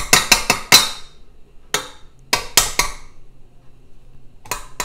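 A metal measuring spoon knocked against the rim of a stainless steel stand-mixer bowl to shake off sticky peanut butter: a quick run of sharp metallic taps at the start, three more a couple of seconds later, and two near the end.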